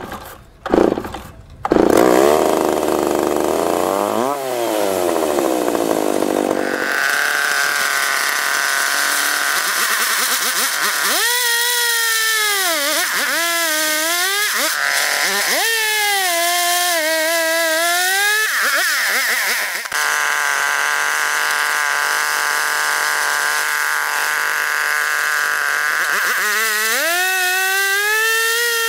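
McCulloch Pro Mac 655 two-stroke chainsaw pull-started, catching about two seconds in and being revved. It then runs at high throttle ripping a cedar log in an Alaskan-style chainsaw mill. Its pitch sags and recovers again and again as it loads up in the cut.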